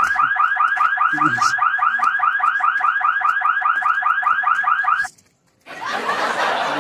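Electronic alarm siren sounding a fast, even warble of short chirps, about six a second, which cuts off abruptly about five seconds in. After a brief gap, a steady rushing noise follows.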